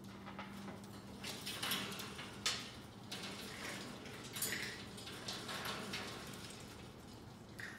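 Irregular light clicks, knocks and rustles of a squirrel monkey climbing about its wire cage.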